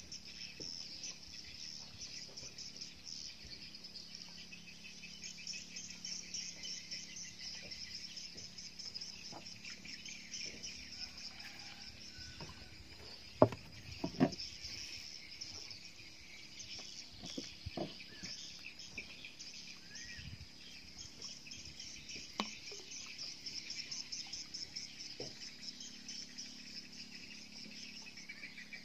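Steady high-pitched chirping of insects. About halfway through come two sharp knocks close together on the raft's wooden planks, the loudest sounds here, followed by a few fainter knocks.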